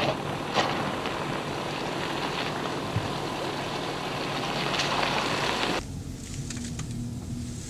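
Volkswagen Touareg crawling over a loose gravel off-road track: tyres crunching on gravel over a low engine note, with a few sharp stone clicks. About six seconds in the sound cuts abruptly to a quieter in-cabin engine drone with a steady hum.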